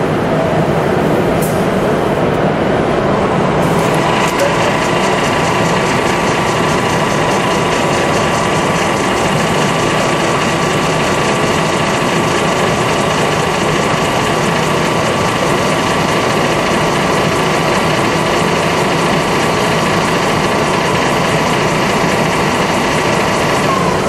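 Ormac shoemaking machine running with a steady mechanical hum; about four seconds in a steady whine joins it and holds until near the end.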